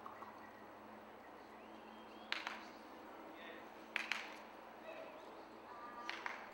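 Quiet indoor arena ambience: faint distant voices over a steady hiss, broken by a few sharp clicks, once a little over two seconds in, twice in quick succession about four seconds in, and a short cluster near the end.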